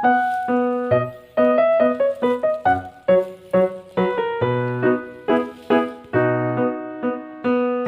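Background music: a keyboard melody with piano-like struck notes, several notes a second.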